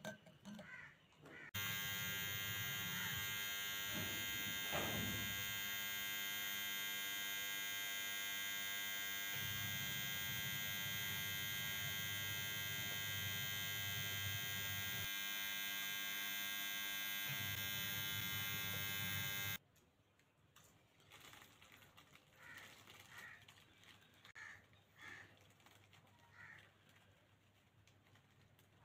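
A steady electric buzz with many overtones starts abruptly about a second and a half in and cuts off suddenly about two-thirds of the way through. After it, faint short calls, likely birds, repeat in the quiet.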